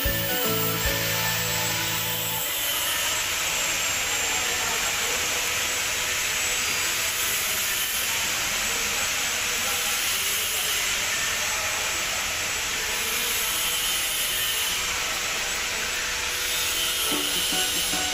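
Steady industrial machinery noise with a strong hiss, holding at an even level throughout. A low pitched hum in the first couple of seconds stops.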